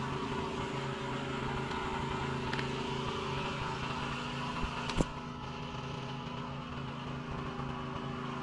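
Steady machine hum, with a single sharp knock about five seconds in.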